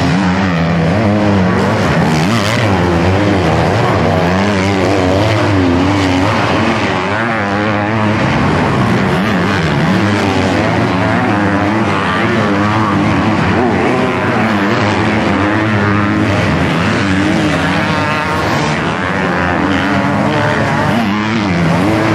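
Several 250cc motocross bikes racing, their engines revving up and down as the riders open and close the throttle over the track's bumps.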